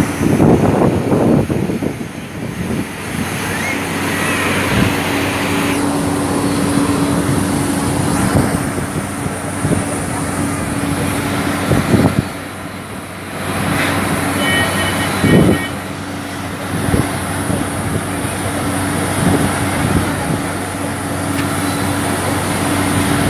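Steady mechanical drone of a parked jet airliner and its ground equipment, with a constant high whine over a low hum. A few low wind buffets hit the microphone, and a brief high beeping sounds about two thirds of the way in.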